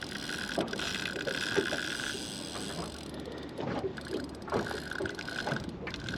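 Fishing reel being wound in while playing a hooked fish, its gears whirring steadily for about two seconds, pausing, then winding again near the end.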